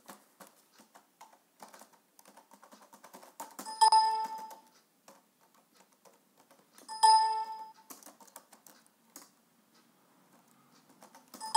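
Computer keyboard typing, soft clicks as text is keyed in. A short electronic chime sounds twice, each time Enter moves the cursor on to the next field.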